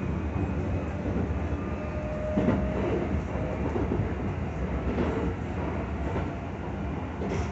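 Shin-Keisei 80000 series electric train running, heard from inside the passenger car: a steady rumble of wheels on rail, with a few knocks about two and a half seconds apart.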